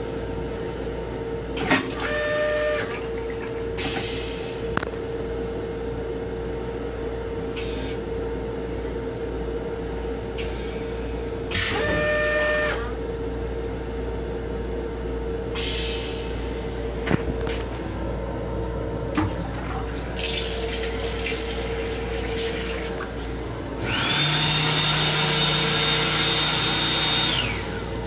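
M7 railcar toilet running through its flush cycle: water rinses into the stainless-steel bowl in two short spells about ten seconds apart, then a louder machine noise with a steady high tone runs for about three and a half seconds near the end. The railcar's steady hum runs underneath.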